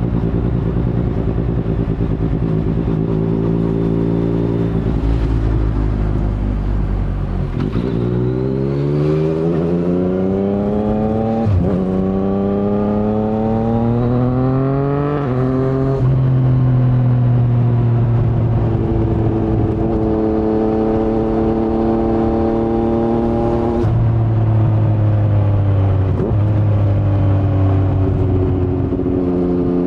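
2019 Yamaha MT-09's 847 cc inline-three engine through an un-baffled Akrapovic carbon full-system exhaust (no dB killer), heard from the saddle. It holds a steady note, then accelerates with the pitch climbing through two quick upshifts, each a sudden drop in pitch. It then settles into a steady cruise, with one more gear change near the end.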